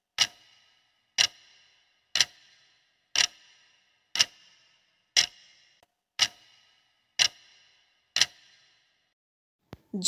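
Countdown timer sound effect: clock-like ticks, one a second, nine in all, each with a short ringing tail; the ticking stops shortly before the end.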